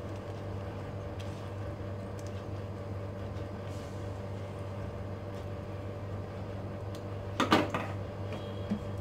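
A hand squelching through thick gram-flour batter in a steel bowl, faint against a steady low hum. Near the end, a short loud metal knock as the steel bowl is set down on the gas stove's grate.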